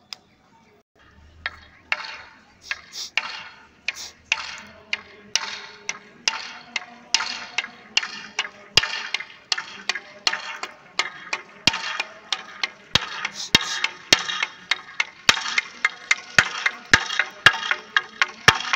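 A column of uniformed marchers' boots striking the asphalt in step, about two footfalls a second, with a scuffing hiss behind each step. It grows louder as the column draws near.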